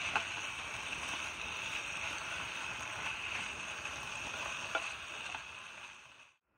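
Steady rushing noise of wind and lake water, with a couple of faint clicks, fading out near the end.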